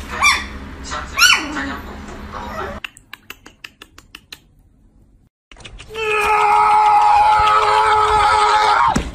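Small poodle puppy yipping twice in short rising-and-falling cries, then faint clicks like its claws ticking on a laminate floor. About six seconds in comes a steady, high-pitched cry held for about three seconds, which stops suddenly.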